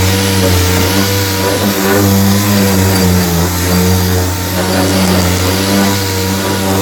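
Pneumatic 6-inch dual-action palm sander with a 3/16-inch orbit running on a surface, a steady hum whose pitch wavers slightly, over the hiss of a portable high-vacuum unit drawing the dust through the sanding pad.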